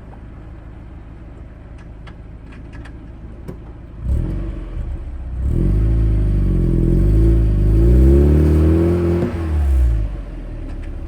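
Mazda MX-5 mk2.5 four-cylinder engine idling, then revved for about five seconds, its pitch rising and falling several times as the car is driven up onto bricks. It drops back to idle near the end.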